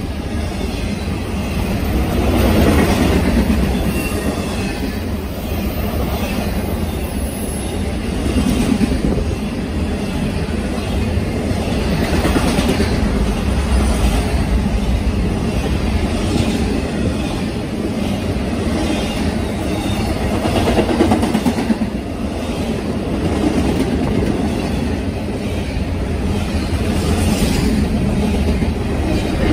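Norfolk Southern intermodal freight train's container well cars rolling past at speed: a steady, loud rumble of steel wheels on rail with clickety-clack from the wheel sets, swelling and easing every few seconds as the cars go by.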